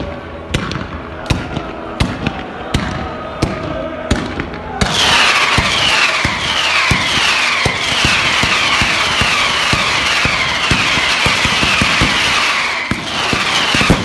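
Stadium pyrotechnics going off: a run of sharp bangs, then about five seconds in a loud steady hiss sets in, carrying a quick series of falling whistles, with bangs continuing through it.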